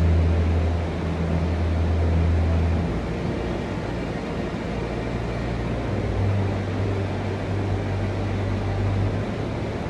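Steady rushing mechanical noise under a low hum. The hum is strongest for the first three seconds and sits a little higher in pitch from about six to nine seconds in.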